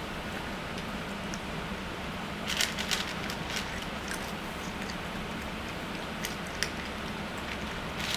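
A cat eating cat food: scattered short chewing and crunching clicks, with a small cluster about two and a half seconds in, over a steady low hum.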